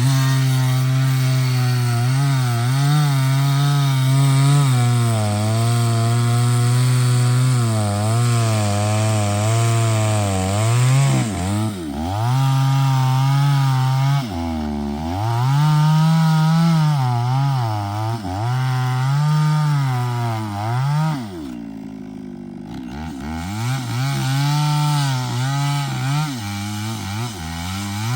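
Two-stroke chainsaw cutting through a large trunk. The engine's pitch sags and recovers repeatedly as the chain loads up in the wood, with a few brief drops and a short easing-off about three-quarters of the way through.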